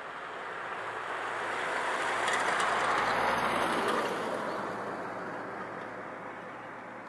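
A vehicle passing on an asphalt road: a rush of tyre noise swells to its loudest about three seconds in, then fades away.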